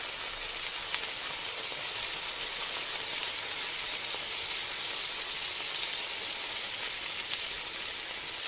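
Food frying in hot oil: a steady sizzle with a few faint pops.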